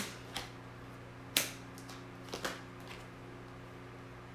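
Tarot cards being handled and drawn from the deck: about five short, sharp snaps and taps of card on card and card on table, the loudest about a second and a half in, over a faint steady hum.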